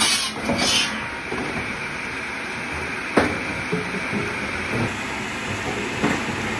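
Motor-driven circular log saw running steadily. Two short bursts of high hiss in the first second are the blade cutting into wood. A single sharp knock comes about three seconds in.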